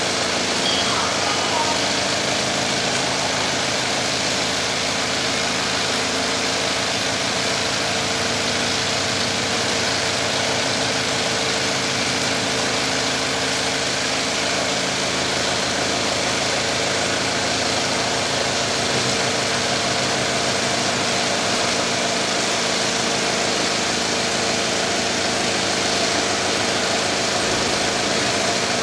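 WY-3A mattress border tape sewing machine running steadily, its Kansai chain-stitch sewing head stitching quilted border tape as it is drawn through: a continuous, even mechanical whir.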